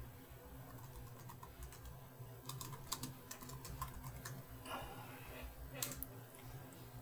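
Typing on a computer keyboard, faint: a quick run of key clicks in the middle, then a couple more a second or two later.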